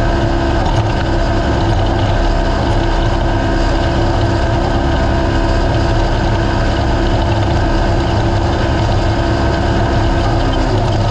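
Engine of a naturally aspirated race UTV running steadily, its pitch dropping slightly near the end.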